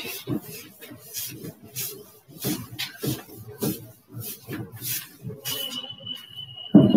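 A felt chalkboard duster being rubbed across a chalkboard, making short rough wiping strokes about twice a second. A thin steady high tone joins about five and a half seconds in, and a loud knock comes near the end.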